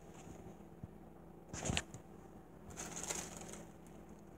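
Faint rustling of a plastic oven bag being handled, in two short bursts about a second and a half and three seconds in.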